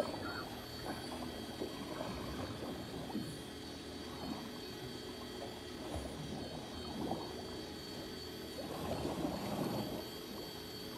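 Sea water sloshing and lapping against a small fishing boat's hull in an uneven churn, with a faint steady high whine underneath.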